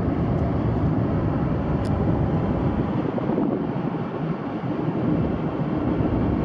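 Steady road and wind noise inside a Hyundai Sonata's cabin, cruising at about 80 mph on cruise control.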